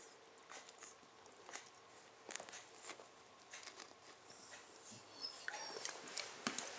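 Shar pei chewing and licking food taken from a hand: faint, scattered mouth clicks and smacks.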